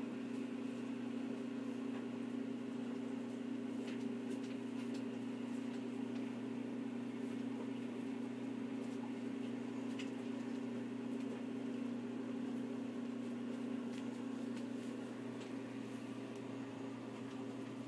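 Steady low mechanical hum, with a few faint clicks.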